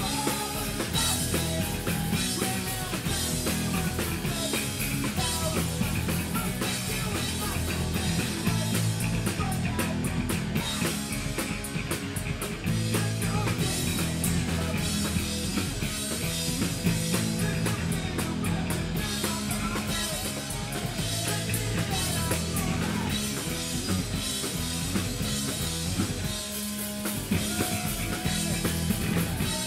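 Live rock band playing a fast song: two electric guitars, bass guitar and drum kit.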